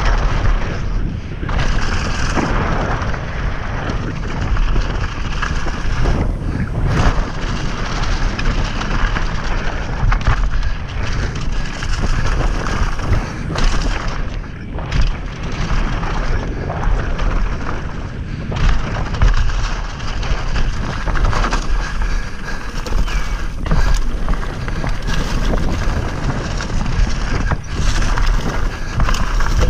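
Wind buffeting the microphone of a camera on an electric mountain bike riding fast down a dirt trail, a continuous deep rumble over the rattle and crunch of knobby tyres on loose dirt and leaf litter.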